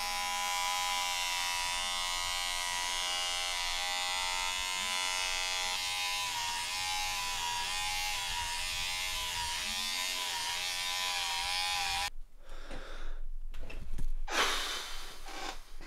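Electric body shaver running steadily as it shaves leg hair. Its hum wavers slightly in pitch partway through, then it switches off about twelve seconds in. A few short knocks and rustles follow.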